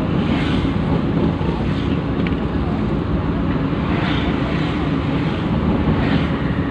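Steady engine and road noise heard from inside the cabin of a moving vehicle.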